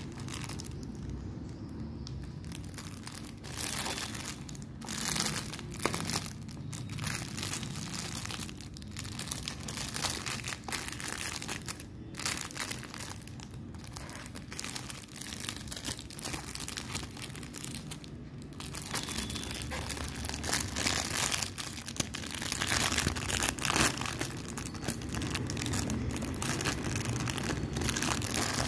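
Clear plastic packaging crinkling and rustling in irregular spurts as hands handle and pull at the plush earmuffs sealed inside it, getting busier and louder in the second half.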